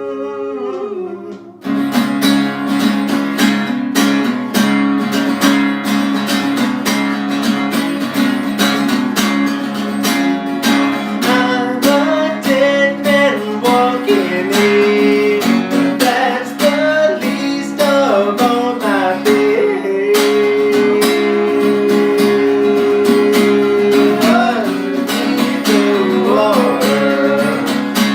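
Acoustic guitars strumming a country song's intro, a held chord giving way to steady strumming about two seconds in. A melody line rises and falls over the strumming from about ten seconds in.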